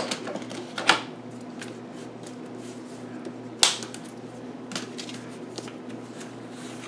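Cardstock being handled and pressed flat on a table: a few sharp paper rustles and taps, the loudest about three and a half seconds in, over a steady low hum.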